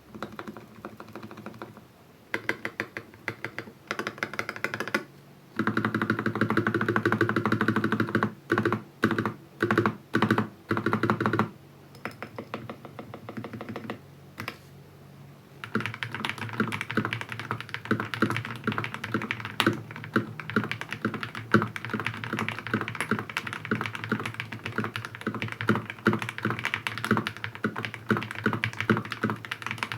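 Typing on an RK61 mechanical keyboard with Gateron Ink Black v2 linear switches and Akko PBT doubleshot keycaps, tape-modded and foam-filled; the owner suspects the switches are over-lubed. Quick runs of keystrokes and a string of short rapid bursts in the first half give way to a brief lull, then steady continuous typing from about halfway.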